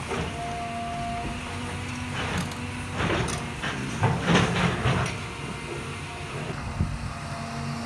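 John Deere 300G tracked excavator's diesel engine running steadily with a held hum. About three seconds in, a burst of crashing and clattering lasting about two seconds as the bucket pulls down brick and timber rubble.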